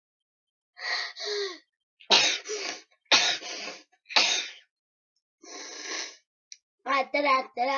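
A child making a string of about five sharp, breathy sneeze sounds, roughly a second apart. Near the end a child starts singing.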